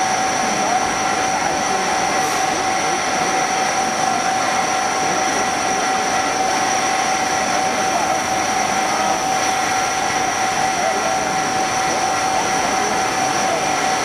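CNC machine milling a metal RC-helicopter rotor hub under flood coolant. A steady high whine from the spinning spindle and cutter sits over the hiss of the coolant spray, unchanged in pitch and level.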